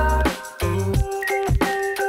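Background music: an electronic track with short melody notes over a bass line and a steady beat.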